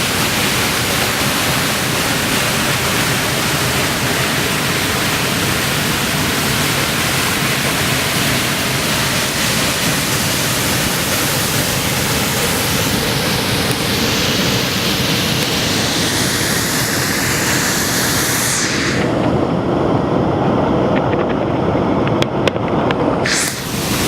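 Kivach waterfall's water running with a steady, loud rushing hiss. About three-quarters of the way through, the sound turns muffled and duller for a few seconds, then the full hiss returns just before the end.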